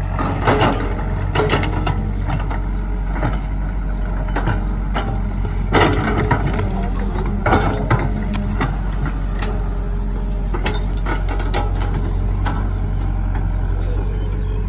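Caterpillar hydraulic excavator's diesel engine running steadily while the bucket digs into wet mud, with irregular clanks and knocks from the bucket and arm, the loudest about six and eight seconds in.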